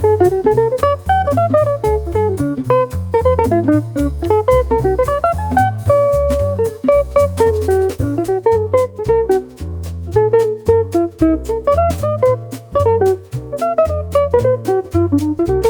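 Background music: an upbeat jazzy instrumental with a busy plucked guitar melody over a steady bass and drum beat.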